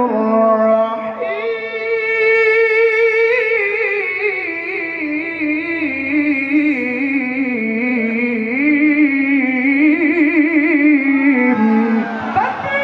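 A man recites the Quran in melodic tilawah style into a microphone. He draws one long phrase out for about eleven seconds with a wavering, ornamented pitch, breaks off, and starts a new held note near the end.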